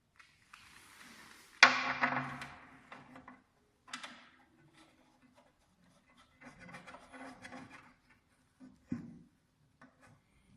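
Irregular handling noises from equipment being set up: rubbing and knocking of parts. The loudest is a sudden clunk about one and a half seconds in that fades over a second or so, and a sharp knock comes near the end.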